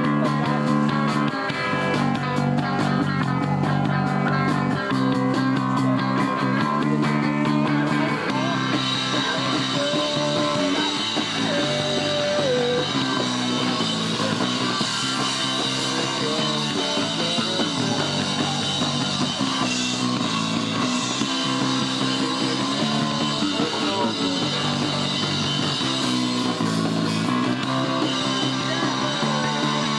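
Punk band playing live: distorted electric guitar chords over drums, with fast cymbal hits for roughly the first eight seconds before the part changes.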